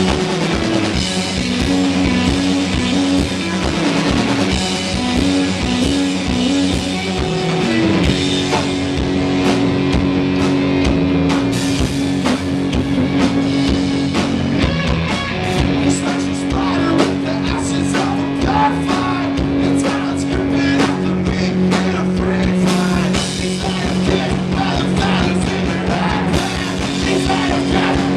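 Live post-punk band playing loudly: distorted electric guitar, bass and a drum kit, with some singing, recorded through a small camcorder's built-in microphone.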